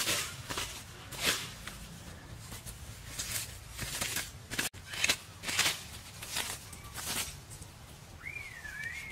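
Machete blade chopping and scraping through grass and soil in quick, irregular strikes, about two a second. A short warbling whistle comes in near the end.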